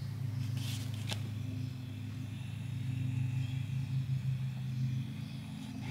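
Steady low background hum from a running machine, with a couple of faint clicks about a second in.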